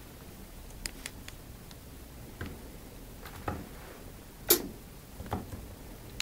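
Scattered light taps and clicks of kittens' paws on a hardwood floor as they play, with one louder knock about four and a half seconds in.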